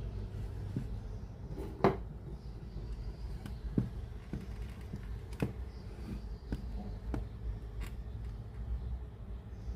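Scattered, irregular small clicks and light knocks over a steady low hum.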